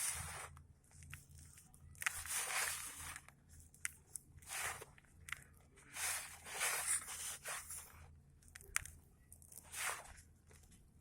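Dry, gritty red sand clumps being crumbled, in about five separate crunching bursts with small sharp crackles between them.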